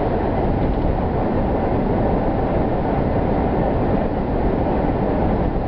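Steady road and engine noise inside a moving car: a constant low rumble with hiss.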